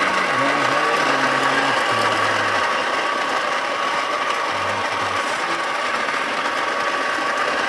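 Breville Dose Control burr coffee grinder's motor running steadily as it grinds beans at a fine setting, a constant mechanical whine.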